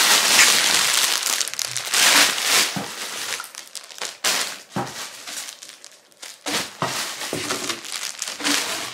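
Clear plastic garment bags crinkling and rustling in irregular bursts as plastic-wrapped clothes are lifted out of a cardboard box and handled.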